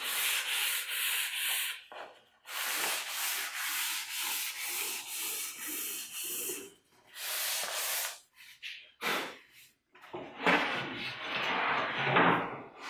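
Hand sanding with a sanding sponge on a wooden crosscut sled runner, fine-tuning its fit in the table saw's miter slot: quick back-and-forth rubbing strokes in several runs broken by short pauses, turning rougher and fuller near the end.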